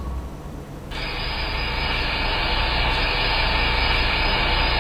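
Steady hiss and low hum from a night-vision security camera's own recording, coming in about a second in. No other events are heard over it.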